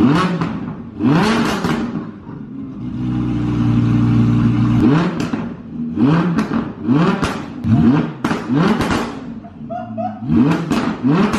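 Sports car engine revving: a few rising revs, then a steady drone for a couple of seconds, then a string of short rising revs, about one every three-quarters of a second, each breaking off and starting again.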